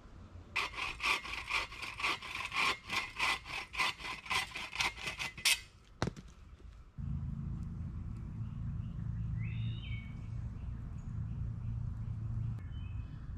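Hand saw cutting through a wooden pole in a quick run of back-and-forth strokes for about five seconds, ending with a sharp click. After that a steady low rumble takes over.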